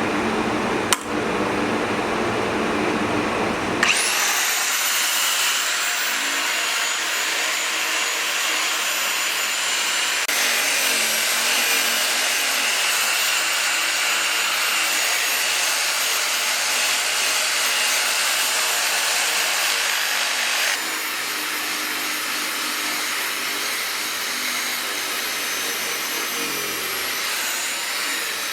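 A lower machine hum with a sharp click about a second in, then from about four seconds in a high-speed electric power tool running with a steady high whine. Its sound shifts abruptly twice.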